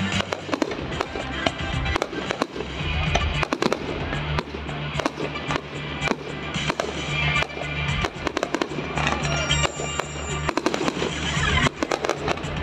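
Fireworks display: a dense, continuous string of bangs and crackling bursts, with music playing along underneath.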